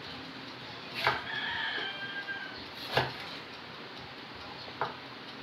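A large kitchen knife slicing vegetables on a bamboo cutting board: three sharp knocks of the blade on the wood, about a second in, at three seconds, and just before five seconds. Just after the first knock, a drawn-out high-pitched call sounds in the background for over a second.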